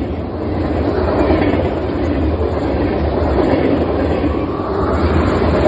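A freight train's covered hopper cars rolling past close by, their steel wheels running loudly and steadily on the rail.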